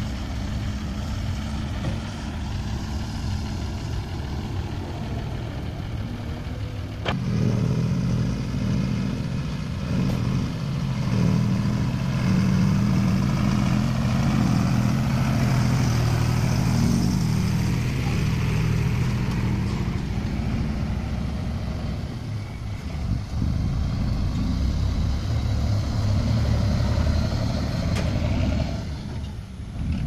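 Diesel engine of a loaded Condor dump truck running and pulling away under load. A sharp click comes about seven seconds in, after which the engine grows louder and holds steady before easing off near the end.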